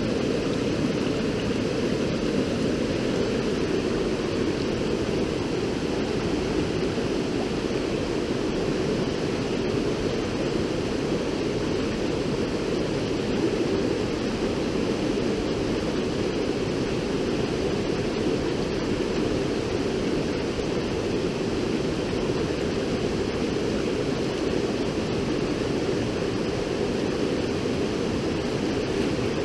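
River water rushing, a steady, even noise with most of its weight low down.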